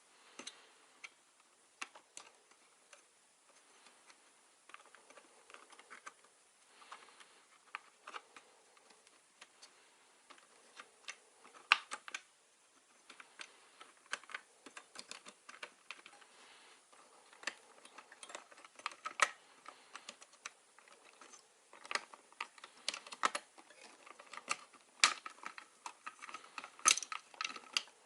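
Irregular small clicks, taps and rustles of hands handling computer parts and hardware, getting busier and louder in the second half.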